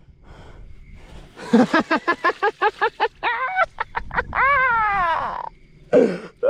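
A man's excited vocalising: a quick run of short laughing bursts, then one long drawn-out yell, as he celebrates landing a big striped bass.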